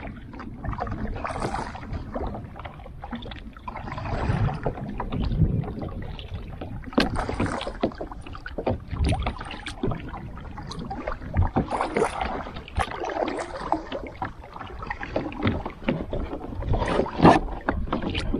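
Water splashing and lapping around a plastic sit-on-top fishing kayak, with irregular knocks and splashes scattered throughout and some wind on the microphone.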